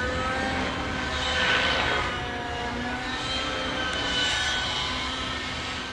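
Synergy N9 RC helicopter's O.S. .91 two-stroke nitro engine running at high revs under the whir of its rotor blades, the sound swelling twice as the helicopter manoeuvres.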